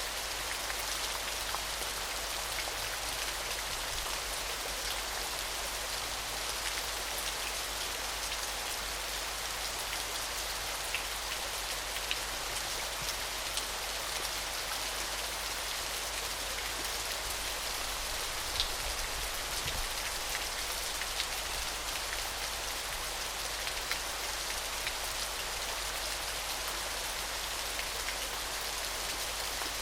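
Small waterfall splashing steadily: an even high hiss of falling water with scattered droplet splashes, one a little louder about two-thirds of the way through.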